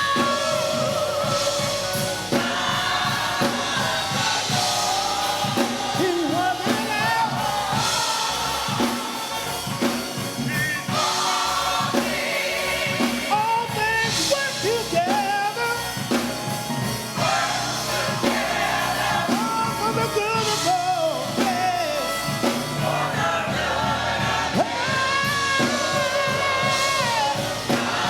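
A church choir singing gospel music, backed by instruments with a drum beat.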